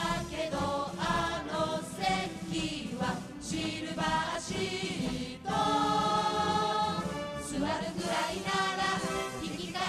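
Background music with a choir singing.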